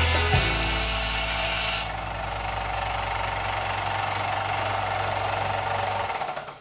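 Belt sander running, with a small brass piece held against the abrasive belt and ground with a gritty hiss for the first couple of seconds. After that the belt runs free with a steady motor hum, which fades away near the end.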